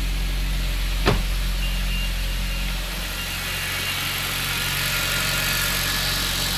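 Mitsubishi Lancer Evolution X's 2.0-litre turbocharged four-cylinder idling steadily just after starting on a newly fitted timing chain, running smoothly. A single sharp click about a second in, and the engine note dips slightly about three seconds in.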